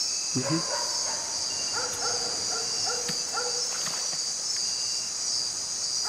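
Steady, high-pitched chorus of night insects, with fainter short calls repeating lower down.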